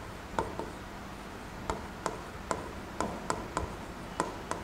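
A stylus tapping and clicking against the surface of an interactive touchscreen board during handwriting: about ten short, sharp taps at an uneven pace.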